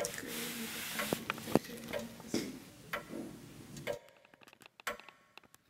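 A run of light ticks and clicks over a faint hiss, which drops away suddenly about four seconds in, leaving only a few faint clicks.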